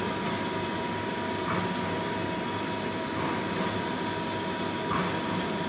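Steady whir of a kitchen appliance's fan, with a constant hum tone, running evenly throughout.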